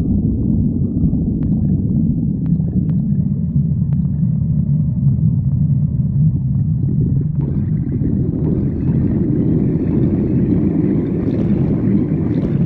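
Human stomach growling: a continuous low rumble, with higher sounds joining in about halfway through.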